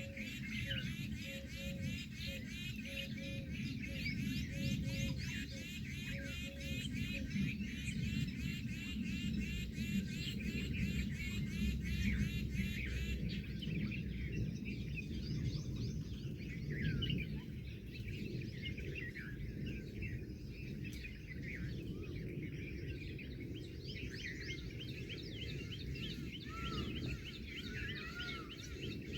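Several wild birds calling: a fast, even run of repeated high chirps through the first half, then scattered chirps and whistles. A low hooting note repeats about twice a second until about a quarter of the way in. A steady low rumble of background noise lies underneath.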